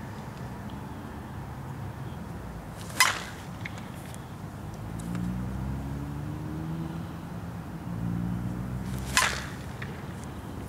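Two sharp cracks of a slowpitch softball bat hitting the ball, about six seconds apart, each with a brief ring.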